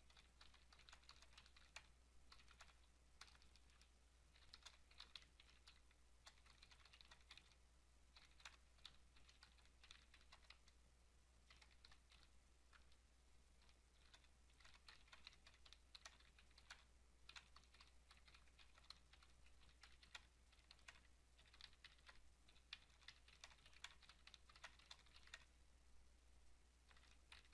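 Faint typing on a computer keyboard: runs of quick keystrokes in bursts a few seconds long, with short pauses between them.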